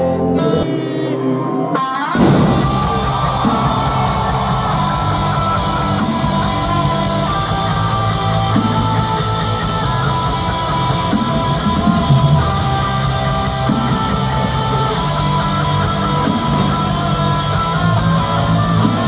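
Live rock band with distorted electric guitar heard from the arena crowd. A thinner passage of held tones breaks about two seconds in into the full band playing loud and dense.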